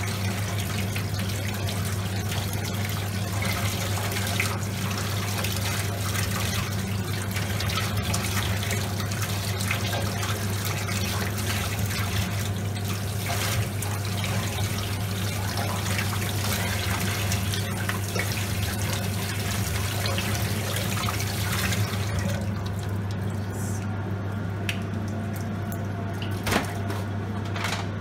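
Tap water running onto a split lobster and splashing into a stainless steel sink as gloved hands rinse it. The water stops about three-quarters of the way through, leaving a steady low hum, and there is a single knock near the end.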